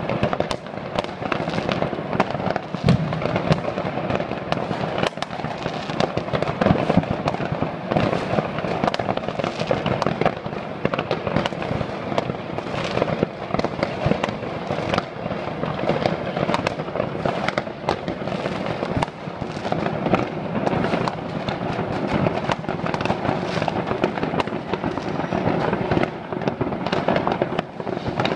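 Many consumer fireworks going off at once across a city: a continuous din of countless overlapping bangs, pops and crackles with no pause.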